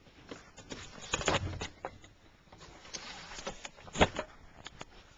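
Rustling and a string of small knocks and scrapes, with a louder rustle about a second in and a sharp knock about four seconds in.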